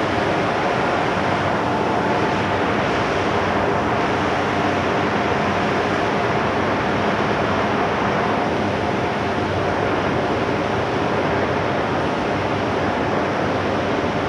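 Passenger train at a station platform: a loud, steady rumble of train noise with a faint steady hum, with no sudden knocks or squeals standing out.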